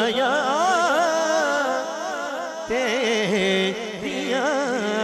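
A man singing a Punjabi naat solo into a microphone, holding long ornamented notes with the voice sliding up and down in melismatic runs.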